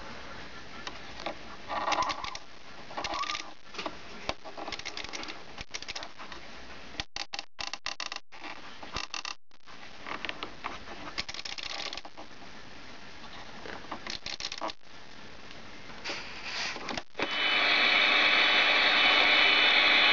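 Flip-number cards of an Intercord clock radio clicking over in irregular runs as the time is wound forward. About 17 s in, the radio comes on with a loud, steady hiss.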